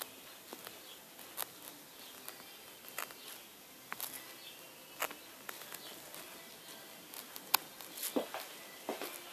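Quiet room with scattered faint clicks and taps: handling and movement noise from a handheld phone being panned around.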